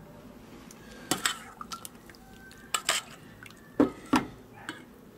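Metal spoon stirring cubed raw fish in lime juice in a stainless steel bowl, clinking and scraping against the bowl: a handful of sharp clinks starting about a second in.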